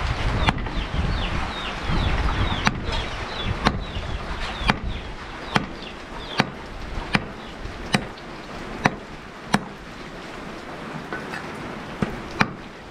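Knife chopping meat on a chopping board, mincing it for laab: about a dozen sharp single strokes roughly a second apart, with a short pause near the end. Chickens peep in the background during the first few seconds.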